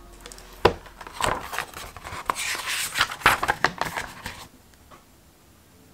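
A hardcover paper diary being handled on a desk: a few sharp knocks of the cover against the tabletop, with rustling pages in between, as it is opened and pressed flat. The handling stops after about four seconds.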